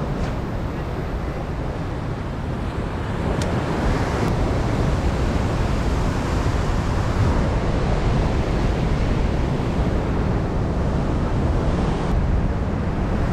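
Heavy ocean swell surging and breaking white against a rock ledge, a steady rushing wash that builds slightly a few seconds in, with wind buffeting the microphone.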